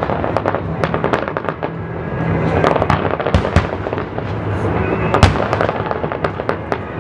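Fireworks display: a rapid barrage of shell bursts banging and crackling, with the loudest bang about five seconds in.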